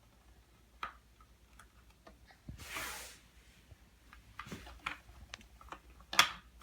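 Light clicks and taps of plastic Play-Doh toy pieces and molds being handled on a table, with a brief rustle about two and a half seconds in and a sharper knock near the end.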